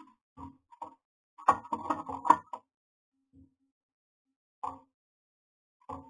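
A run of short taps and knocks with silence between them, including a dense cluster about a second and a half in.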